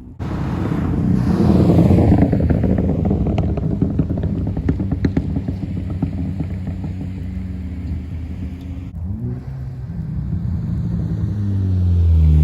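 Ford Focus ST's turbocharged four-cylinder through a catless downpipe and muffler-delete exhaust, popping and crackling in a rapid, irregular string as the engine comes off the throttle on a pop tune. After a brief break near nine seconds the engine pulls again, rising in pitch near the end.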